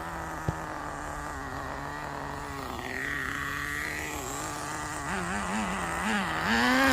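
Nitro RC car's small glow-fuel engine running steadily. Its pitch wavers up and down about five seconds in and rises briefly near the end as it is revved.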